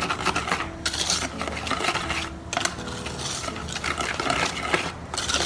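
Continuous scraping and clinking of a utensil working the dry cake ingredients in a mixing bowl.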